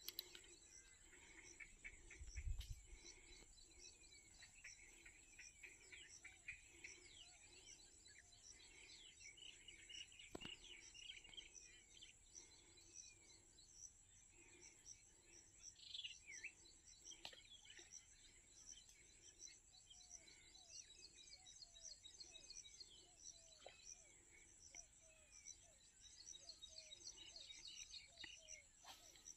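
Faint outdoor ambience of many small birds chirping, over a steady high insect buzz. A single low thump about two and a half seconds in.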